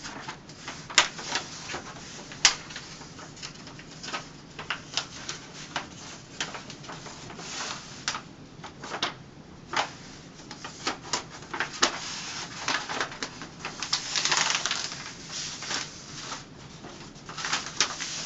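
Wax-paper backing of a peel-and-stick wall mural crinkling and crackling as it is folded and creased by hand: irregular sharp crackles, with a longer rustle about fourteen seconds in.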